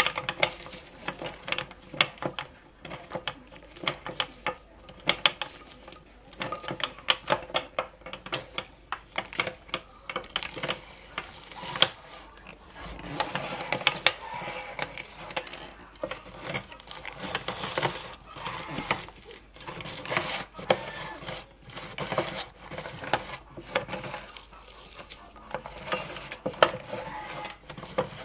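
Firecrackers clattering against a plate and against each other as a hand stirs and scoops through the pile: a rapid, irregular run of light clicks and rattles.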